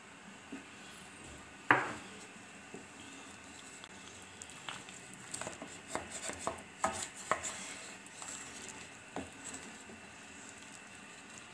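Wooden spoon stirring soup in a wok-style pan, knocking and scraping against the pan: one sharp knock about two seconds in, a quick run of clicks and taps around the middle, and one more knock near the end.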